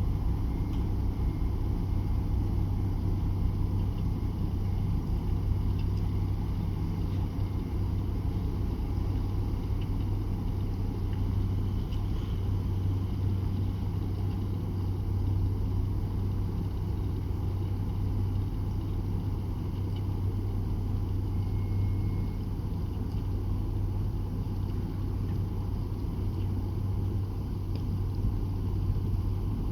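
Diesel engine of a boat running steadily, a continuous low hum.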